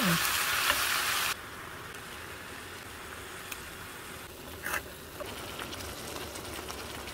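Vegetables sizzling in a cast iron skillet, loud for the first second or so, then dropping suddenly to a faint crackling hiss with scattered small clicks.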